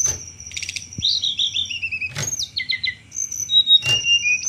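Tledekan gunung (hill blue flycatcher) singing in its chattering 'cetrekan' style. A high, steady whistled note holds on, with short varied notes and quick falling runs of chips, and three sharp clicks about two seconds apart.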